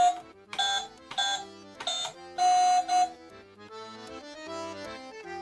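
Casdon toy chip-and-pin card reader beeping as its PIN keys are pressed: four short electronic beeps about half a second apart, then one longer beep, over a steady background music bed.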